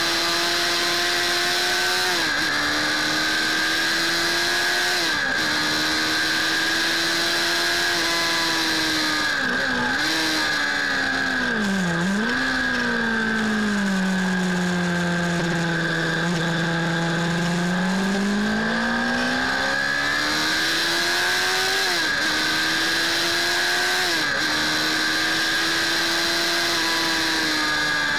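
Suzuki Bandit 600 S inline-four engine heard from the rider's seat, with wind noise throughout. The revs climb and drop sharply at gear changes twice early on and twice near the end; around the middle they fall away, hold low for several seconds through a slow corner, then pull back up.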